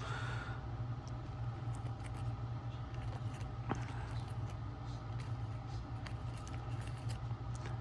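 Trading cards being handled: faint light rustles and a single sharp click near the middle, over a steady low hum.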